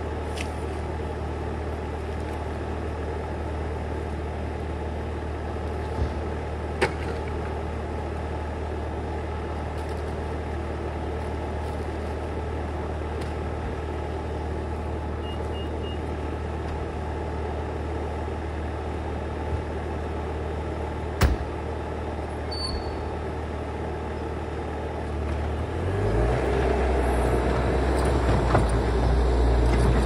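Bobcat T590 compact track loader's diesel engine idling steadily, then throttled up near the end as the loader starts to move. Two sharp knocks in the middle.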